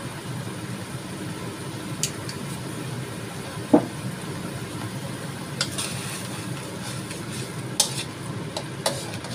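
Tomato sauce simmering and sizzling in a wok on a gas stove over a steady low hum, with a sharp knock about four seconds in. A spatula clicks and scrapes against the wok in the last few seconds as the sauce is stirred.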